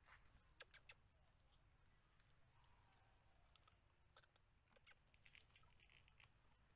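Near silence with faint scattered clicks and ticks: a few in quick succession in the first second, and more scattered through the second half.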